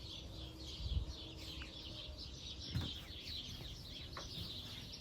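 Small birds chirping continuously, many quick high chirps overlapping, with a couple of faint low thumps.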